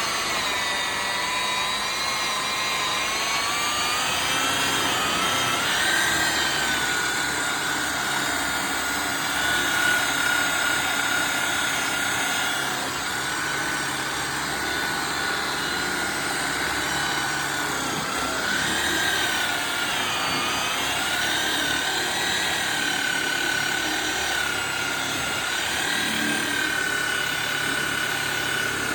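Electric buffer motor running steadily with a high whine while polishing a metal bumper, its pitch sagging and recovering several times as it is pressed against the part.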